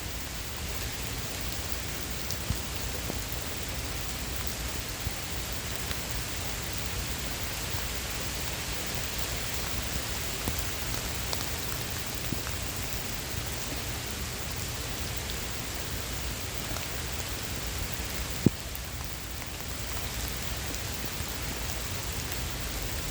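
Heavy rain pouring down steadily, with scattered drop ticks and one sharp tap about three quarters of the way through.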